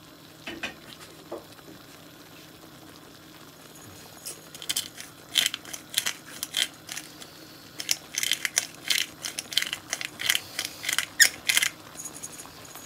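Hand-twisted salt and pepper grinder cracking seasoning into the pan: quick, irregular runs of short crunchy clicks, starting about four seconds in and continuing nearly to the end.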